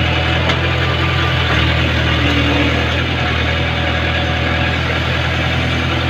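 JCB backhoe loader's diesel engine running steadily, heard close up from the operator's seat.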